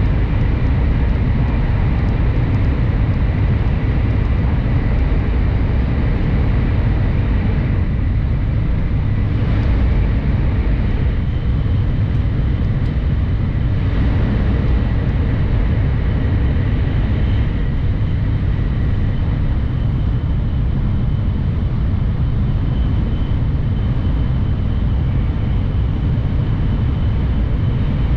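Shinkansen bullet train running at speed through a tunnel, heard from inside the passenger cabin: a steady, loud rumble with a faint high whine above it.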